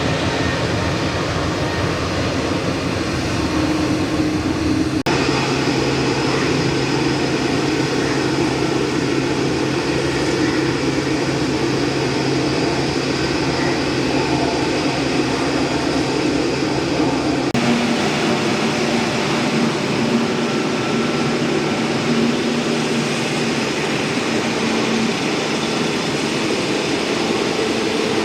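Jet airliner engines running with a steady roar and whine. The sound changes abruptly twice, about five seconds in and again past the middle.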